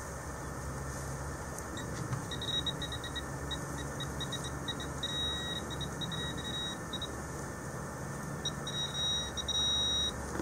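Handheld pinpointer probe beeping in short high pulses, running together into a solid tone about five seconds in and again near the end: the beeps quicken and go steady as the probe closes in on a buried metal target, here a brass button.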